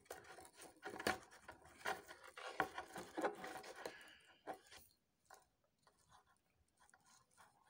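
Stiff crinoline netting rustling and scraping, with many light clicks, as it is handled and hand-stitched to a clear plastic headband. The handling noise stops about five seconds in.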